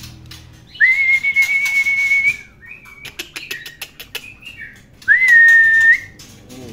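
Two long, steady whistled notes, the first held about a second and a half and the second about a second, each scooping up at the start. Short sharp clicks and a few brief notes come between them.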